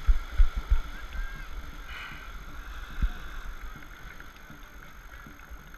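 Dragon boat paddles churning the water, with spray rushing and splashing alongside the hull as the crew races. Several low thumps come in the first second and another about three seconds in.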